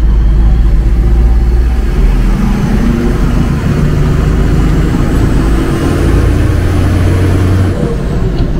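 Off-road 4x4 truck's engine running as it is driven, with road noise, heard from inside the cab. The engine note shifts a couple of times.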